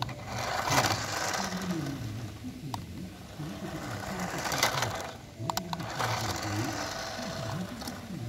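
Small electric motor of a battery-powered toy race car whining as it drives, with a gritty crunch of its wheels over loose gravel about a second in.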